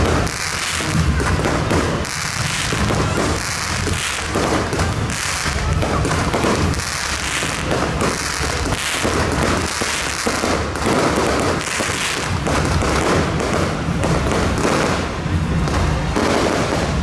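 Fireworks on a burning castillo tower. Spark fountains hiss without a break under a dense, continuous run of crackles, pops and thuds.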